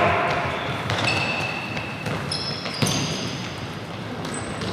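Futsal ball thudding off feet and the floor, with one sharp knock about three seconds in. Short high squeaks of trainers on the hall floor come in between.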